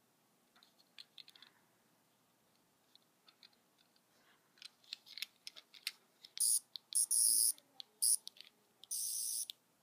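Plastic clicking and handling of a 10th Doctor sonic screwdriver toy, then, about six seconds in, its electronic sonic sound effect in four short high-pitched bursts.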